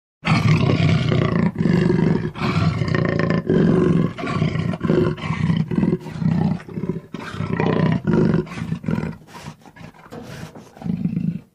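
Leopard roaring in a long series of rough, low calls broken by short gaps. The calls weaken for a while near the end, then one last loud call follows.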